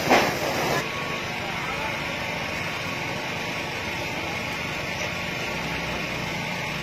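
A brief knock right at the start, then a steady rumble and hiss that runs on unchanged.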